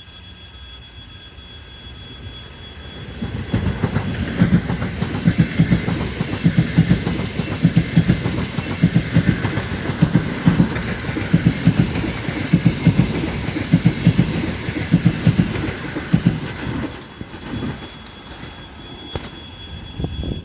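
Two coupled ES2G "Lastochka" electric multiple units passing at speed, their wheels clattering rhythmically over the rail joints. The noise builds over the first few seconds and fades near the end as the train moves away.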